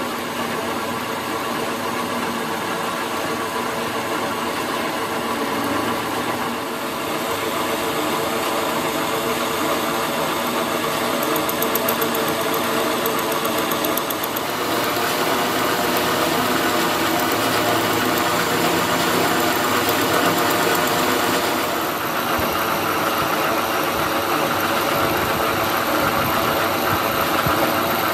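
Metal lathe running, its motor and gearing making a steady mechanical drone as the tool turns down a metal shaft for a hydraulic jack. The tone shifts about fifteen seconds in and again a few seconds later.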